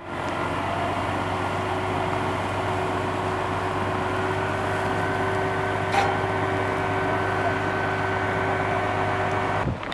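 A steady engine hum, with the hiss of a fire hose jet spraying water into burning brush. One sharp click about six seconds in.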